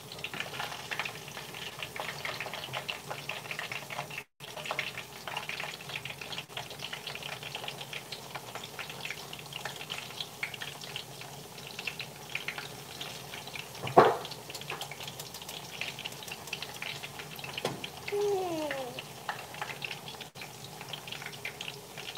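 Food frying in hot oil in a pan, a steady crackling sizzle. A single sharp knock about fourteen seconds in, and a short whine falling in pitch a few seconds later.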